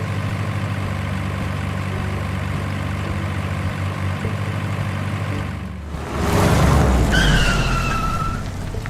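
Truck engine running steadily. About six seconds in, a loud rush of noise starts, and a whistle-like tone that falls slightly in pitch sounds over it for about a second.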